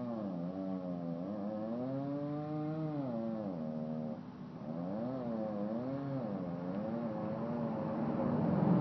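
Two-stroke chainsaw cutting into a white pine trunk. Its engine pitch sags and rises again over and over as the cut loads and frees the chain, and about four seconds in the saw eases off briefly.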